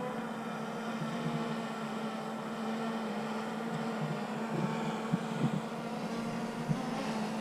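Steady, even buzzing hum that the beekeeper says is a drone rather than his bees, with a few faint light knocks about five seconds in as hive frames are handled.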